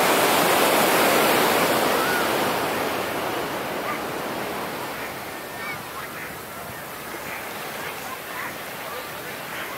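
Ocean surf breaking and washing up the beach. The rush is loudest in the first two seconds, then slowly dies away into a quieter steady wash.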